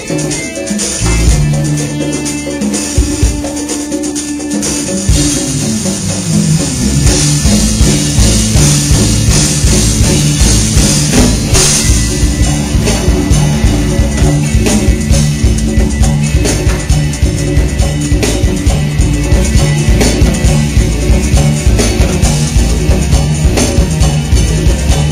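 Live rock band playing with drum kit and electric guitar; after a sparser opening with held low notes, a steady driving beat sets in about five seconds in.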